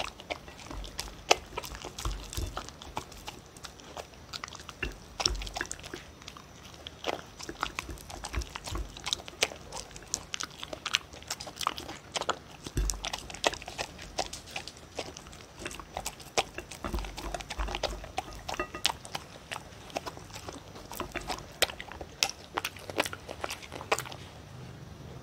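A dog eating from a plate close to a microphone, chewing and crunching beef kibble with pieces of bell pepper and sweet potato. The crunches and clicks come irregularly and many to the second.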